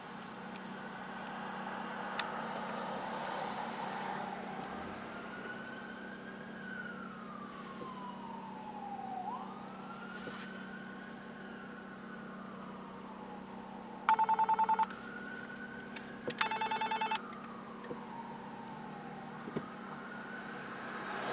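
Police car siren wailing, its pitch sweeping slowly up and down, with two short bursts of a harsh, rapidly pulsing tone about two-thirds of the way through that are the loudest sounds. A steady low hum runs underneath.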